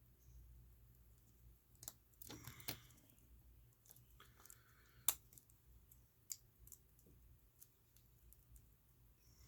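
Near silence with a few scattered sharp clicks and light taps, the loudest about five seconds in: small watch parts and tools being handled on a workbench.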